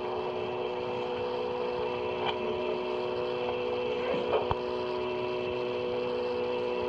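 Steady hum of several held tones over hiss on a railroad dispatcher's telephone line, recorded on a cassette, with a couple of faint clicks about four seconds in.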